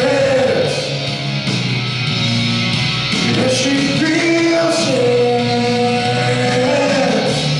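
A man singing a rock song into a microphone over a loud rock accompaniment, holding some notes for a second or more.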